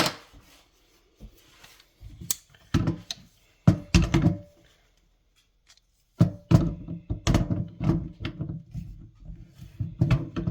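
Channel-lock pliers knocking and clicking against a Moen faucet as they are fitted and worked to loosen a part. A few separate knocks come in the first half, then after a short pause a dense run of clicks and scrapes.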